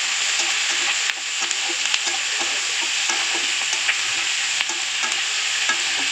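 Chopped onion and capsicum sizzling in hot mustard oil in a metal kadai, a steady hiss, while a metal spatula stirs them with scattered scrapes and clicks against the pan.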